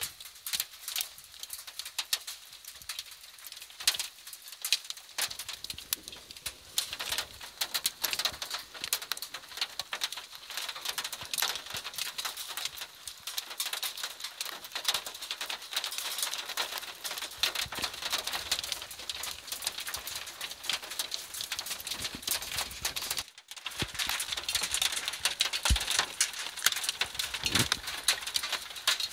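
Hail falling: a dense, irregular patter of hailstones striking the ground and nearby surfaces. It is sparse at first, thickens after a few seconds, and grows heavier after a brief gap late on.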